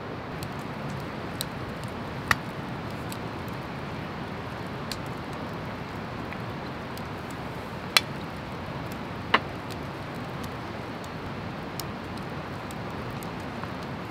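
Wood fire crackling: a steady hiss with scattered small ticks and three sharper pops, about two, eight and nine seconds in.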